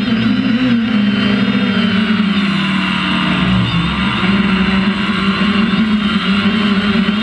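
A quadcopter drone's electric motors and propellers whine steadily, picked up by its own onboard camera. Their pitch sags for a moment a few seconds in and then climbs back as the throttle changes.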